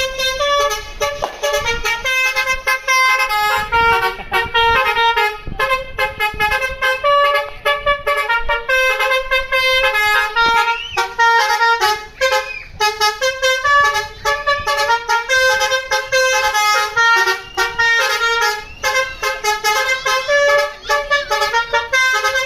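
Basuri V3 multi-tone telolet horn on a tour bus playing a fast melody of short notes one after another, with no pause.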